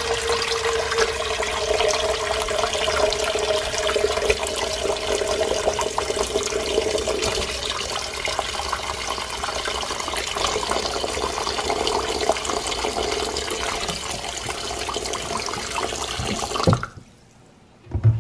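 Tap water running and splashing into a nonstick pot of chicken feet as it fills at a kitchen sink, with a faint note that rises a little as the pot fills. The tap is shut off about 17 seconds in, and a brief knock follows near the end.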